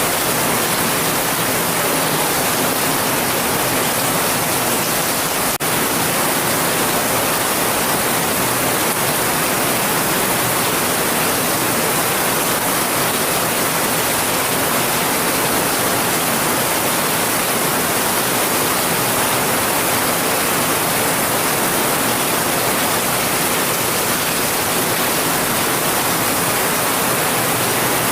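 Heavy rain pouring steadily, a dense even hiss with no single drops standing out. There is one brief click about five and a half seconds in.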